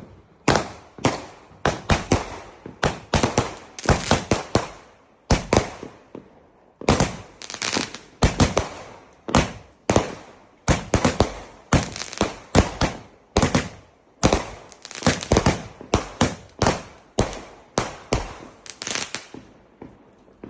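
Fireworks going off in a long, irregular string of sharp bangs, about two or three a second, each trailing off briefly, stopping about a second before the end.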